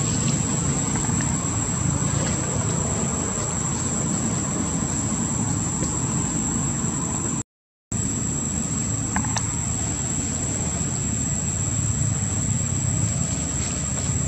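Steady low rumble with a constant thin high-pitched whine above it. It cuts out completely for a moment about halfway through, then carries on unchanged.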